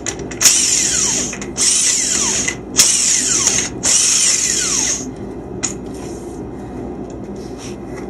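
Hand-held power tool, drill or driver type, run in four short bursts of about a second each, backing out chassis fasteners during teardown. It stops about five seconds in, followed by a single sharp click.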